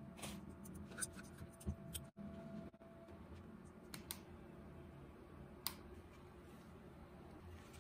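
Faint, scattered light clicks and taps as small clear resin miniature cups are handled and set down on a work table, over a low room hum.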